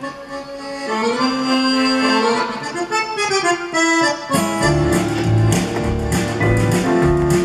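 Accordion playing a melodic intro alone, joined about four and a half seconds in by double bass, guitar and drums with a steady beat.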